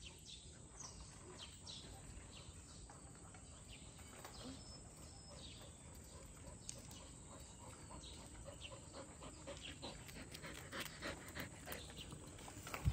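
Australian cattle dog panting after running for a ball, the quick breaths growing louder in the last few seconds as it comes up close. Faint bird chirps are heard now and then.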